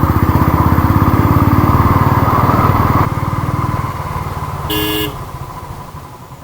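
Motorcycle engine running close by with an even, rapid thump. Its level drops suddenly about three seconds in, a short horn beep sounds around five seconds, and the engine sound then fades away.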